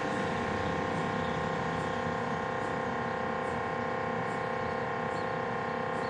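Mobile MRI scanner running, heard from outside its trailer as a steady hum made of several tones, with faint ticks about once a second.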